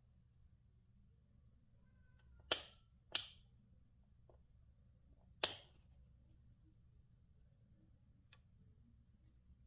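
Three sharp clicks, the first two about half a second apart and the third two seconds later, with a few faint ticks around them.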